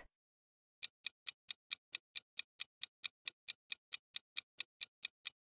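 Clock-tick sound effect, an even run of short ticks about four to five a second, starting about a second in, timing the pause for the quiz answer.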